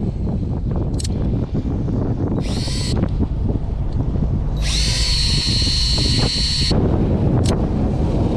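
Electric fishing reel's motor whining as it winds line, in two spurts: a short one and then one of about two seconds. Under it runs a steady low rumble of wind and boat.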